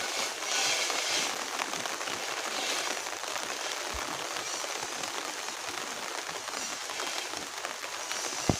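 Heavy rain falling steadily, a dense even hiss with scattered drops ticking, and one sharp tap just before the end.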